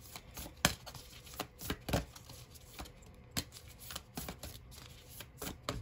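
Oracle cards being shuffled by hand: an irregular string of short card clicks and slaps, several a second.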